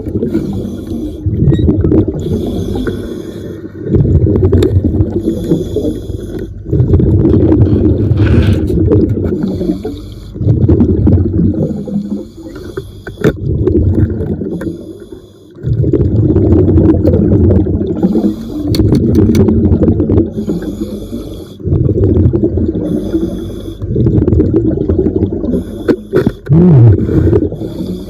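Scuba diver breathing underwater through a regulator: a hiss on each inhale, then a rumble of exhaled bubbles, repeating every two to three seconds.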